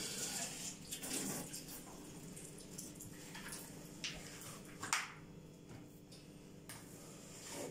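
Metal spoon scooping frozen mango ice cream from a plastic tub and scraping it into glass dessert cups: a few soft scrapes and knocks, the loudest about five seconds in.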